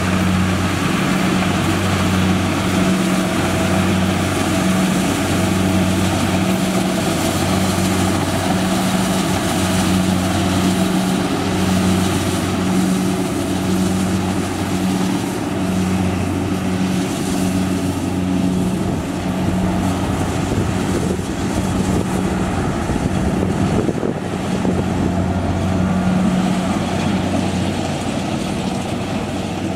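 Kubota rice combine harvester running as it harvests, a steady diesel engine hum with a low drone that swells and drops every second or two under a wash of machinery noise. It grows a little fainter over the last third.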